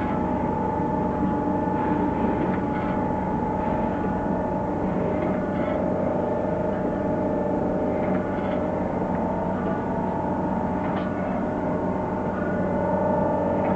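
Okamoto PSG63DXNC surface grinder running with its table traversing back and forth at fast speed: a steady machine hum with humming tones that shift every few seconds, and a faint click at each table reversal, about every three seconds.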